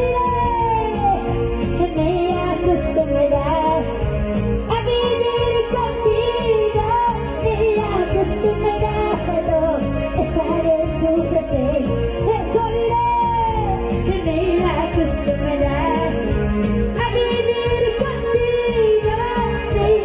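A woman singing a Christian praise song into a microphone, her voice amplified over backing music with a steady beat.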